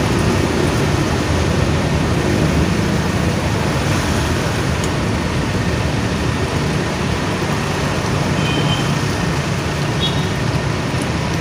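Bus diesel engine idling: a steady, loud low drone.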